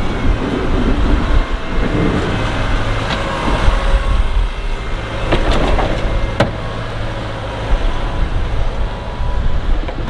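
Kubota compact tractor's diesel engine running steadily while it plows snow, with a few sharp knocks and scrapes from the plow about three, five and a half and six and a half seconds in.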